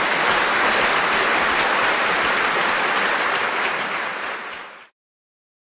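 Steady, loud hiss of noise with no tone in it, which cuts off abruptly about five seconds in.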